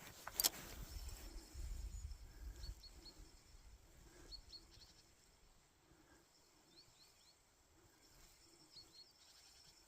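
Faint high bird chirps in quick groups of two or three, repeating every couple of seconds. A sharp click comes about half a second in, with low rumbling in the first few seconds.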